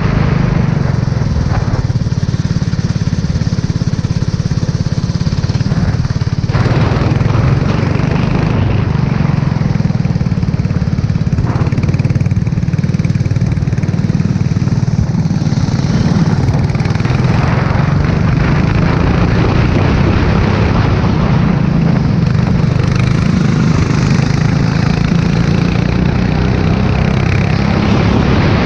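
Engine of an F4 racer running continuously at speed on a wet track, its pitch and load shifting a few times, under a steady loud hiss.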